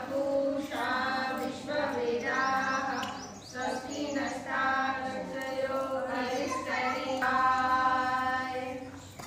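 Women's voices chanting a devotional hymn together, in sung phrases of long held notes with short breaks between them, trailing off near the end.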